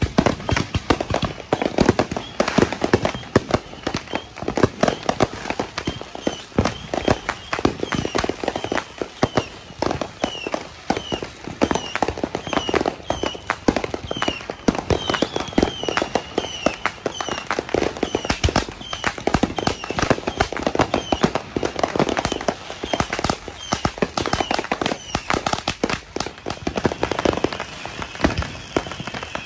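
Many fireworks and firecrackers going off at once: a dense, unbroken barrage of overlapping bangs and crackling pops.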